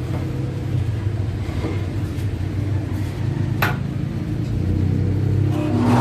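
Bosch 10-inch table saw running free with its blade spinning, a steady low hum with no wood being cut yet. One sharp click about three and a half seconds in.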